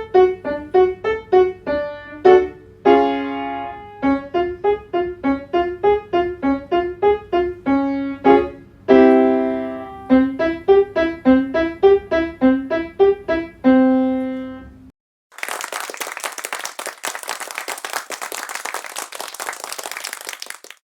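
Piano playing short, detached notes in repeating runs, each run ending on a held chord, the accompaniment pattern of a staccato vocal warm-up. The piano stops about 15 seconds in, followed by about five seconds of dense crackling noise.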